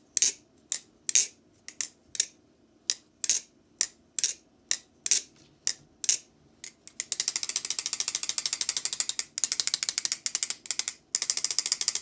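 A bushing-pivot balisong (butterfly knife) being opened and closed by hand, its handles clicking shut about twice a second. About seven seconds in this turns into a fast run of rapid clicks as it is spun quickly. The knife is being flipped to work freshly dripped lube into the pivots.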